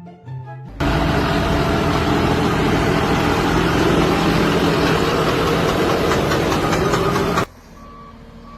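A loud engine running steadily. It cuts in abruptly about a second in and stops abruptly near the end, leaving a much quieter background.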